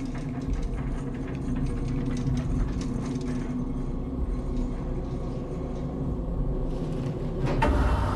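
A mortuary trolley rumbles and rattles as it is wheeled over a hard floor, over a steady low hum. Near the end comes a louder rustling slide as a sheet-wrapped body is pulled onto a steel autopsy table.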